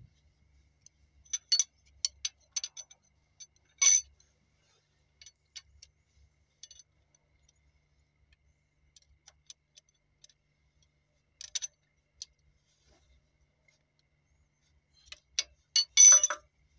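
Steel hand tools clicking and clinking against the rocker-arm adjusting screws and locknuts of a Cummins NT855 diesel engine as its tappets are set. The clicks come singly and in short clusters with quiet gaps, and the loudest run of them comes near the end.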